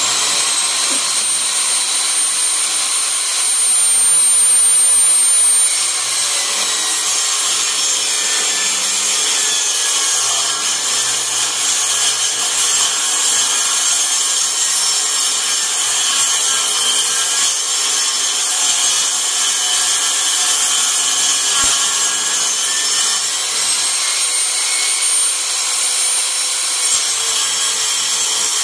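Craftsman 8-1/4-inch 15-amp table saw ripping 5/8-inch plywood: a loud, steady motor-and-blade whine with wood-cutting noise. The whine's pitch drops about six seconds in and climbs back again near the end.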